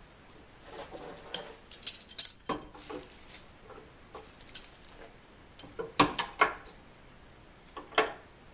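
Steel F-clamps with screw handles being slid and tightened to clamp a glued repair piece onto a wooden drawer front. A run of small clicks and rustles comes first, then two sharp metallic clacks about two seconds apart.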